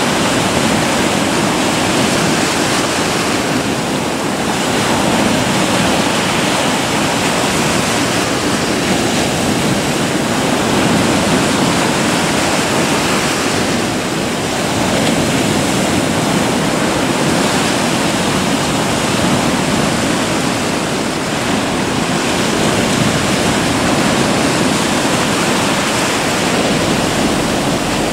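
Mediterranean surf breaking close by: a loud, continuous wash of breaking waves and foam that swells and eases gently every few seconds.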